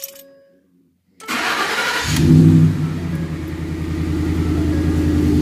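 The last note of a dashboard warning chime, then about a second in the 2012 Ford F-150's Coyote 5.0 V8 cranks on the starter, catches, flares up in revs and settles into a steady idle.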